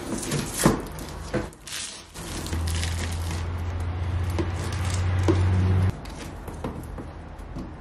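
Soft handling sounds and crinkles as butyl tape is pressed onto a metal frame and its paper backing peeled off, with a few small clicks. A steady low hum starts about two and a half seconds in and cuts off suddenly near six seconds.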